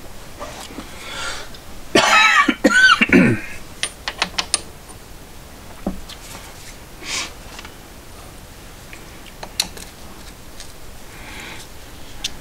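A man coughing and clearing his throat, one loud burst about two seconds in, followed by a few light clicks and taps.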